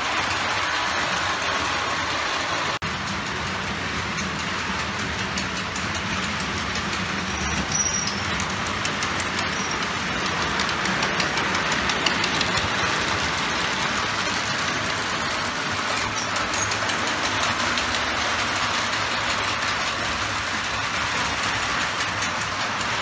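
Model trains running on a layout: a steady rumble and rattle of wheels on metal track, with a faint motor hum underneath.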